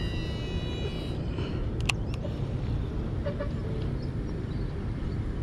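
Baitcasting reel's spool spinning as line pays out on a cast: a high whine that fades out about a second in, followed by a sharp click about two seconds in. A low rumble of wind on the microphone runs underneath.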